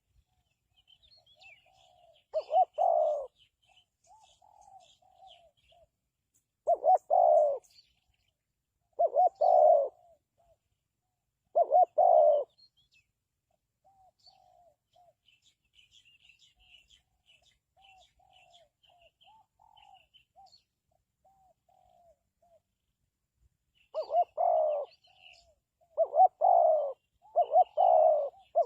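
Spotted dove cooing: loud low coo notes in short groups, spaced several seconds apart at first, then coming faster near the end. Fainter coos and small high bird chirps fill the pause between them.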